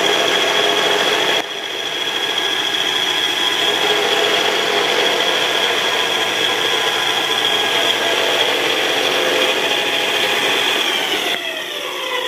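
Delta belt and disc sander running with a steady high whine while a board is pressed onto the moving sanding belt. Near the end it is switched off and its whine falls in pitch as it winds down.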